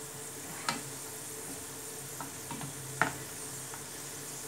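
Cashew nuts and raisins sizzling steadily as they fry in hot oil in a non-stick frying pan. A metal wire skimmer stirring them clicks lightly against the pan a few times, most sharply about three seconds in.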